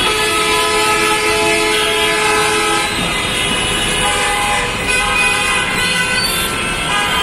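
Bus and other vehicle horns honking over steady heavy-traffic noise: one long horn blast for the first three seconds or so, then several overlapping horns from about five seconds in.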